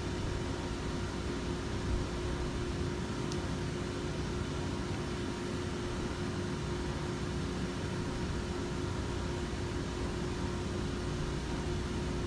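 Steady mechanical hum with a hiss, as of a fan or machine running, with one soft knock about two seconds in.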